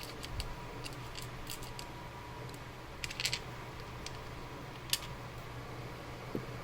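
Small steel lock discs from a disassembled Abloy disc-detainer cam lock clicking against each other and the work surface as they are sorted by hand. The clicks come in scattered light clusters, with one sharper click about five seconds in, over a steady low hum.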